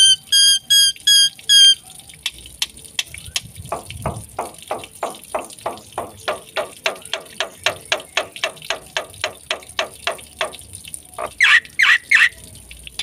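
A black-winged myna (jalak putih) singing. It opens with five loud, clear whistles, then gives a long run of quick falling chirps at about three a second, and ends with three loud harsh calls near the end.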